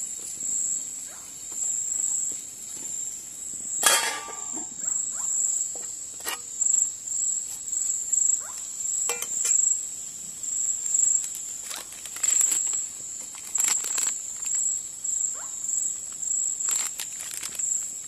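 Crickets trilling steadily in a high, slightly pulsing tone, with scattered knocks and scrapes of a spoon and utensils against a frying pan. The loudest knock comes about four seconds in.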